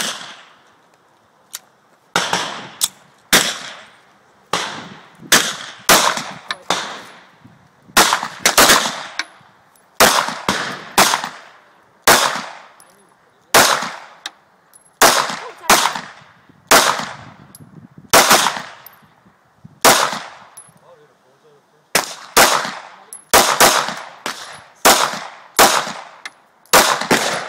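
Springfield XD(M) 9mm semi-automatic pistol firing a long string of shots, each a sharp crack with a short ringing tail. The shots come one every second or so, sometimes in quick pairs, with a short break about two-thirds of the way through.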